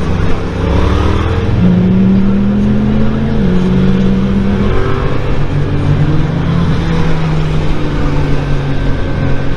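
Yamaha motorcycle's engine accelerating through the gears, its pitch climbing and then stepping down at each upshift.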